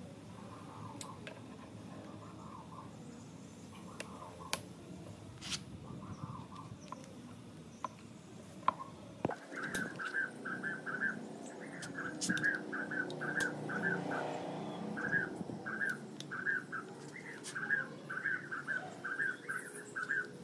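Scattered sharp clicks from a caulking gun's trigger as sealant is pressed out. From about halfway, a small bird chirps over and over in quick runs of short notes of the same pitch.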